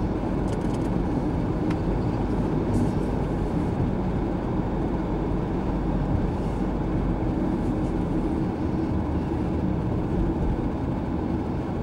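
Steady engine and tyre noise of a car driving along a town road, heard from inside the car, an even low rumble.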